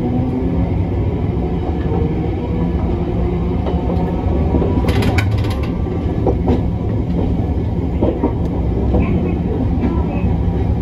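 Hiroshima Electric Railway 1900-series tram (a former Kyoto City Tram car) running along the line: a steady low rumble of the car on the rails, with a short run of clicks about five seconds in.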